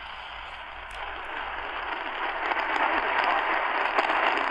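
Medium-wave static hiss from a Tecsun PL-310ET portable radio's speaker, tuned to 590 kHz AM where a weak, distant daytime signal is buried in the noise. The hiss grows steadily louder, with a couple of faint clicks.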